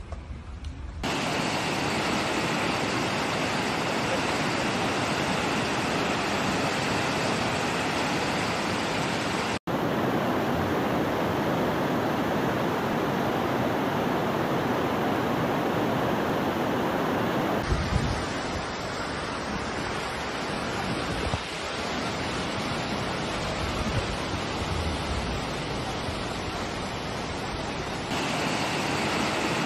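Steady rushing noise of flash floodwater, recorded on phones, in several clips that change abruptly about a second in, about ten seconds in, near eighteen seconds and near the end.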